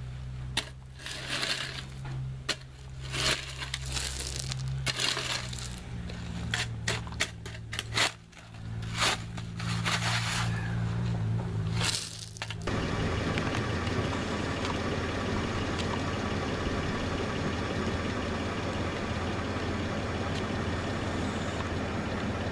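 A steel square-point shovel scraping and clinking irregularly through dirt and gravel. About halfway through, the scraping stops abruptly and a steady drone takes over.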